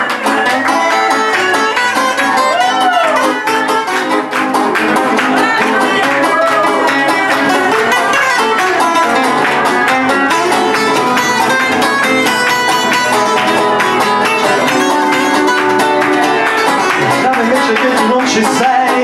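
Guitar playing an instrumental break in a country-style song, the strings picked and strummed continuously.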